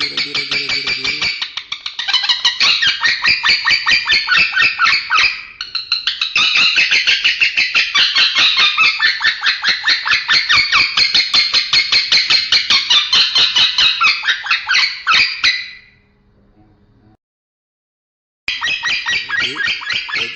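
Male lovebird chattering in a long, rapid, unbroken run of sharp, scratchy notes, a song the owner calls strange and unclear. It breaks off about 16 s in and starts again after two seconds of silence.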